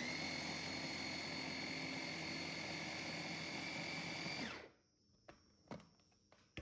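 Electric blender motor running steadily at high speed with a held whine, crushing Oreo cookies into crumbs. About four and a half seconds in it winds down and stops, and a few light knocks follow.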